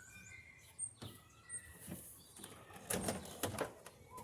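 Faint clicks and light knocks of the dryer's sheet-metal cabinet parts being handled during disassembly, with a few short high chirps in the first two seconds.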